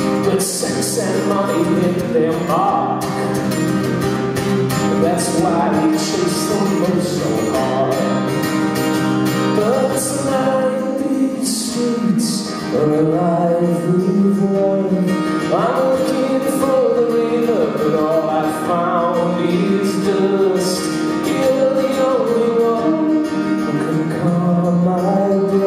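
A man singing with an acoustic guitar, played live through a PA in a concert hall.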